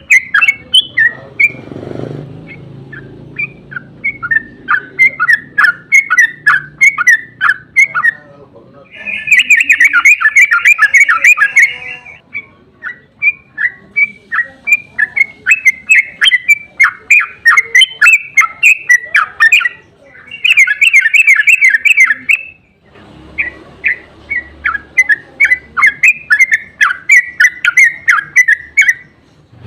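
Yellow-vented bulbul (trucukan) singing long, rapid chattering runs of sharp notes, the "ropel" song. Two denser, louder bursts come about nine and twenty seconds in.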